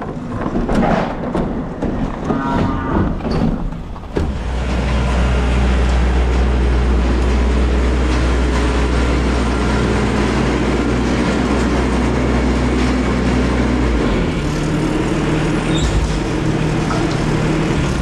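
Farm tractor engine running close by, with a steady low drone that drops away about fourteen seconds in as the engine note changes.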